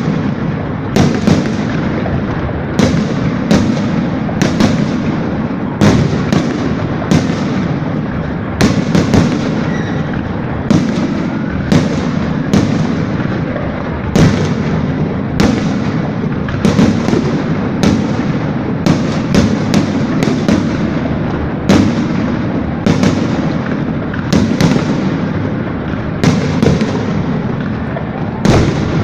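Fireworks salute: a steady string of sharp bangs, about one to two a second, over a continuous rumble and crackle of bursting shells.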